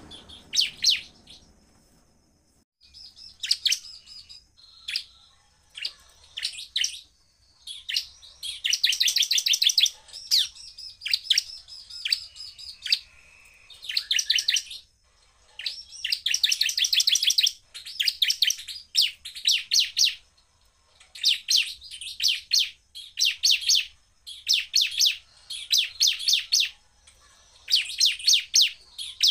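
Caged ciblek (bar-winged prinia) singing in rapid-fire bouts: dense trills of sharp, high repeated notes, each bout lasting from under a second to about two seconds, with short pauses between them. This is the hard, fast 'shooting' song used as a lure to provoke other ciblek.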